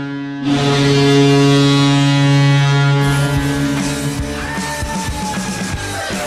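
Ice hockey goal horn sounding a steady, loud low blast, cutting out briefly and starting again about half a second in. About three seconds in it fades under rock music with drums and guitar.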